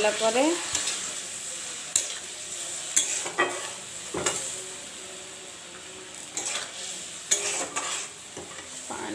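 Curry masala paste sizzling in a pan just after water has been added, with a spoon stirring it and knocking against the pan a few times, about 2, 3 and 4 seconds in.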